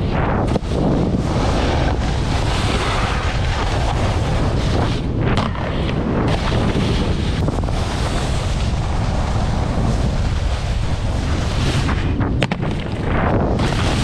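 Wind buffeting an action camera's microphone while a snowboard slides over the snow, its base and edges scraping the surface. The rush dips briefly twice.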